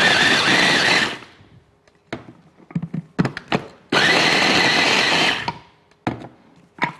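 Small electric mini chopper pulsed in two short bursts of a second or so each, grinding stale bread cubes; it is run in pulses rather than continuously so the crumbs stay coarse. Light clicks and knocks of handling fall between the bursts.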